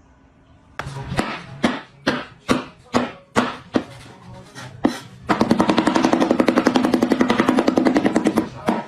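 Music: a string of separate sharp hits, roughly two a second, then from about five seconds in a fast, dense rattle of hits lasting about three seconds.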